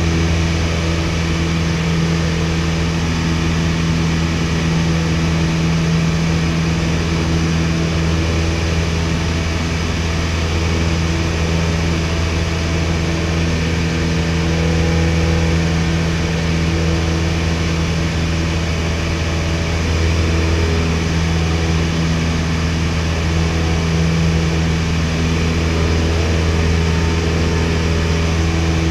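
Cabin of a 1961 Piper PA-22-108 Colt in flight: its four-cylinder Lycoming O-235 engine and propeller droning steadily at cruise-climb power.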